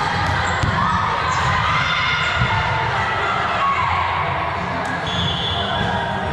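Indoor volleyball match: the ball being struck and bouncing on a gym court, over a steady low rumble.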